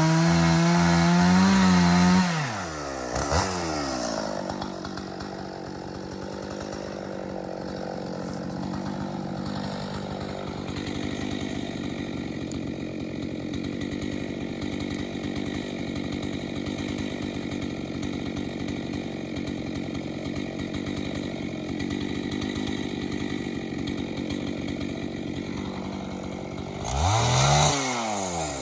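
Gas chainsaw running at full throttle, dropping back to idle about two seconds in and idling steadily, then revved briefly near the end before settling back to idle.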